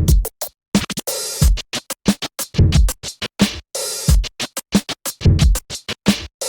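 Electronic background music with a drum-machine beat and stuttering, chopped record-scratch effects, cutting in and out with sudden gaps.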